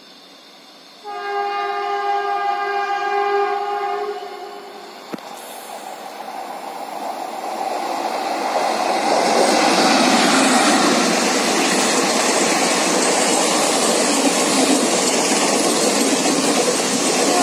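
Indian Railways WAP-4 electric locomotive hauling a passenger express: its multi-tone horn sounds for about three seconds, starting about a second in. Then the rumble and rail noise of the approaching train build up and hold steady as the locomotive and its coaches pass close by.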